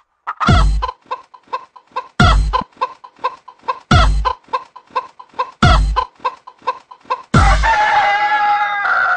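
A rooster clucking in quick, even pulses, cut about every second and a half by a loud deep thump. About seven seconds in it crows, one long call that falls in pitch.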